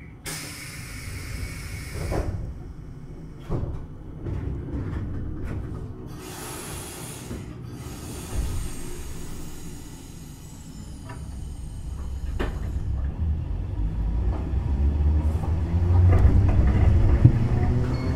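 Keifuku Randen tram car 631 at departure: compressed air hisses and a few sharp knocks, then, from about twelve seconds in, a low running rumble builds and grows louder as the tram starts to move.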